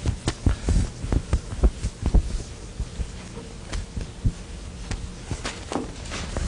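Irregular short taps and knocks of writing on a lecture board, two or three a second at first and sparser later, over a steady low room hum.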